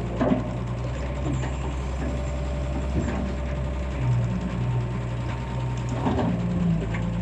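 Excavator engine running steadily, with a few short knocks and clanks of the machine working.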